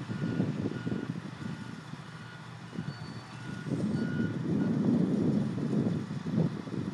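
Vehicle reversing alarm beeping at a steady pitch about twice a second, over a low, uneven rumble that grows louder in the second half and partly covers the beeps.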